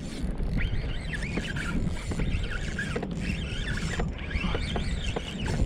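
Wind and water noise on a kayak while a hooked fish is fought on a bent rod, with a run of short high squeaks and a few clicks throughout.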